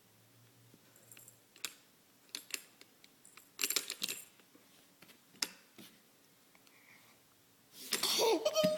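Plastic teething chew toy clicking and rattling in short irregular bursts as it is chewed and handled, with a brief vocal sound with wavering pitch near the end.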